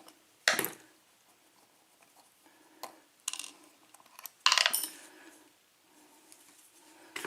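Small metal lock parts clinking and knocking as a pin-tumbler lock cylinder is taken apart by hand: a handful of separate sharp metallic clicks, the loudest a short clatter about four and a half seconds in.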